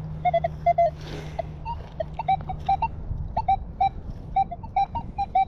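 Nokta Legend metal detector beeping through its built-in speaker as it is swept over ground full of junk targets: a rapid, irregular chatter of short target tones, several a second, some pitched a little higher than others. A steady low hum underneath stops about three seconds in.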